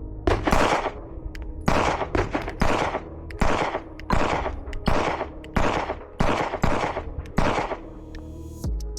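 Smith & Wesson M&P Shield pistol fired in a steady string, about nine shots roughly a second apart, each with a short echo.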